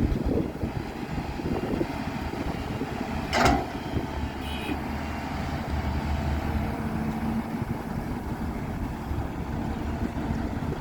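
Excavator's diesel engine running steadily, with one short, sharp noise about three and a half seconds in.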